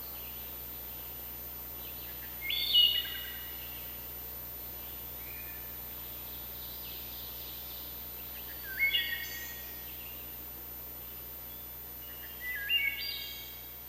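A songbird sings three short phrases of clear whistled notes, stepping between pitches, about five seconds apart, over a steady faint background noise of the forest.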